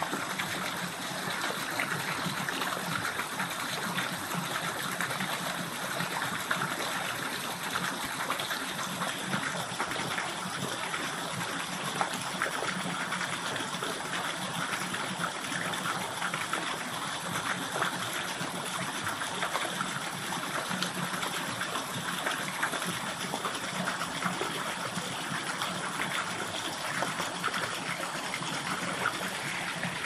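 A stream running steadily: a constant, even rush of flowing water.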